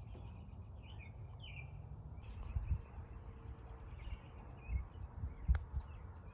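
Faint outdoor background: small birds chirping over a steady low rumble, with a couple of soft clicks.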